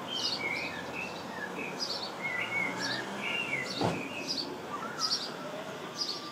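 Sparrows chirping, a quick run of short repeated chirps with some lower warbled notes among them. A single short knock comes a little after the middle.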